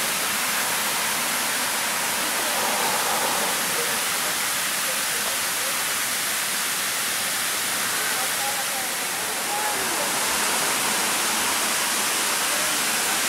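El Alamein Fountain's spherical water spray falling into its basin, a steady rushing hiss of water. Faint voices sound now and then behind it.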